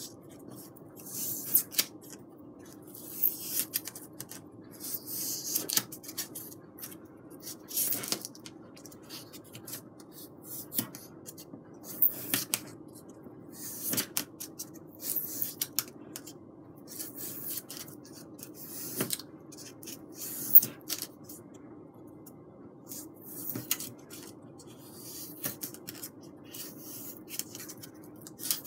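Wooden barbecue skewer dragged along the score lines of foam board to open the scored cuts: a series of short, scratchy scraping strokes, one every second or two, with a few light clicks between.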